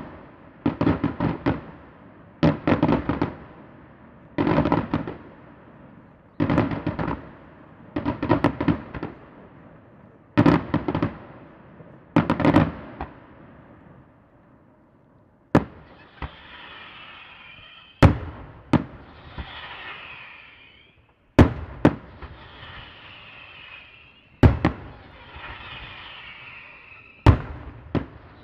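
Daytime aerial fireworks: clustered volleys of rapid crackling bangs, one about every two seconds. About halfway through these give way to single sharp explosions a few seconds apart, with a high wavering whistle between them.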